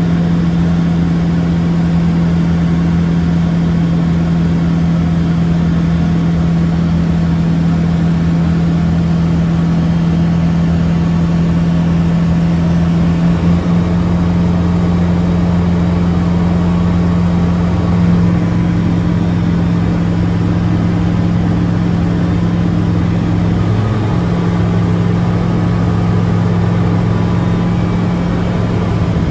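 Light aircraft's piston engine and propeller running at a steady cruise, a loud, even drone heard from inside the cabin.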